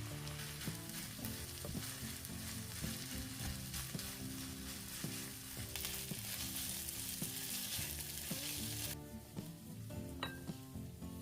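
Food sizzling as it fries in a pan, over background music. The sizzling cuts off suddenly about nine seconds in, and a short clink follows.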